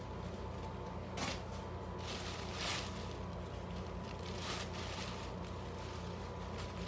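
Shirts being handled and shaken out: a few brief fabric swishes and rustles over the steady hum of a room fan.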